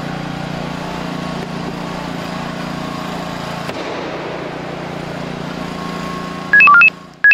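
Motor of a hydraulic rescue tool's power unit running steadily while rescuers force open a car door. About six and a half seconds in, a loud, rapid run of short electronic beeps at changing pitches cuts in.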